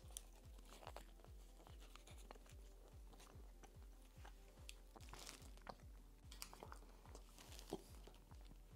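Near silence, with faint crunching and chewing of a Reese's Crunchy peanut butter cup, chocolate with peanut butter and chopped salted peanuts, and a few soft clicks.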